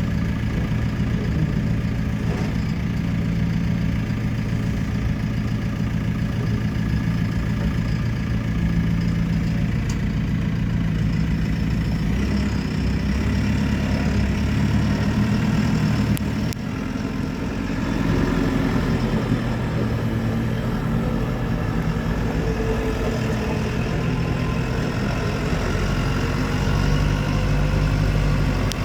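Diesel engine of a JCB 3CX loader backhoe running steadily, dipping briefly about two-thirds of the way in, then running on with a slowly shifting pitch.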